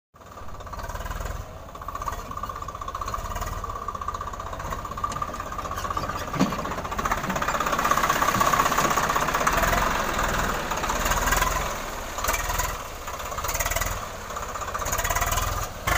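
Swaraj 744 diesel tractor engine running at close range, a steady fast chug that grows louder about seven seconds in.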